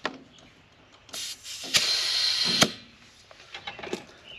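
Compressed air hissing from an air chuck on the tractor tire's valve stem as the freshly plugged tire is topped up. There is a short hiss about a second in, then a louder one lasting about a second that starts and stops with a click.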